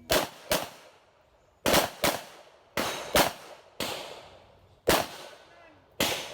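Pistol fired nine times in rapid succession, the first shots in quick pairs about half a second apart and the later ones more spaced out. Each shot is sharp with a short echoing tail.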